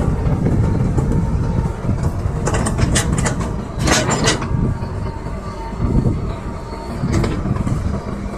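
Excavator at work: its diesel engine runs with a steady low rumble, broken by sharp metallic clanks and clatter, the loudest about four seconds in.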